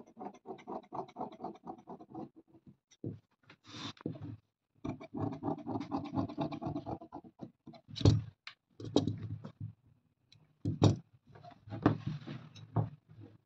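Large fabric scissors cutting through thick cloth, the blades rasping in two long stretches, followed by a few sharp knocks and the rustle of cloth pieces being gathered.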